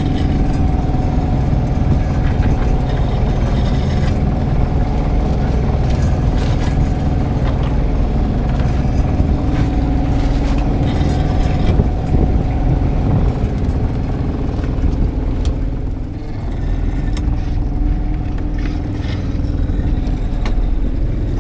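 Fishing boat's engine running steadily, with short knocks and clatter from crab traps being handled on deck.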